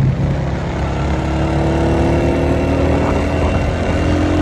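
Motorcycle engine running steadily while riding at road speed, under a heavy rush of wind and road noise, the engine note edging slightly higher partway through.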